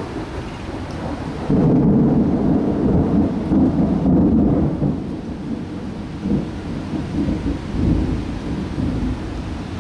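Rolling thunder: a low rumble breaks in about a second and a half in, loudest for about three seconds, then rumbles on more faintly in swells, with rain falling throughout.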